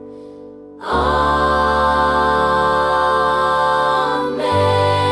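Song music between sung lines: a brief soft lull, then a sustained chord about a second in that shifts to a new chord near the end, with a wavering voice-like note on top.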